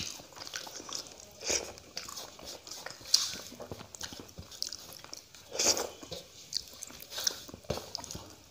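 A man eating rice with his hand: chewing and mouth smacking, with his fingers squishing the wet rice against a metal plate, in short bursts a second or two apart.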